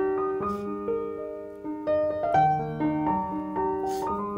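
Background piano music: a gentle melody of struck piano notes, one after another.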